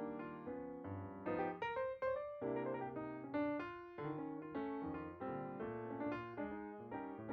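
Background piano music: notes and chords played at a gentle, even pace, each note ringing and fading.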